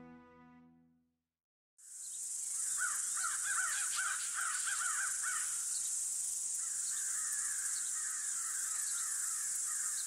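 Background music fades out, and after a short silence an outdoor ambience begins. Crows caw in quick series over a steady high hiss; the calls are loudest for the first few seconds, then go on more faintly.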